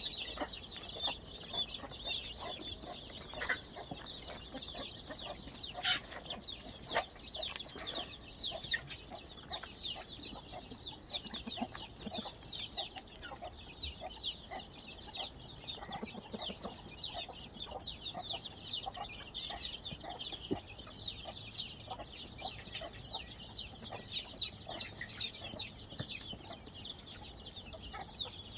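Chickens and their chicks feeding as a flock: a continuous chorus of many high, overlapping chick peeps, with scattered clucks from the hens.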